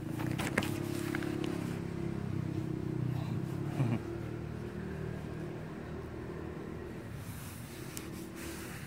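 A cat purring right against the microphone: a steady low rumble that fades after about four seconds and comes back faintly near the end, with a few light clicks in the first second or so.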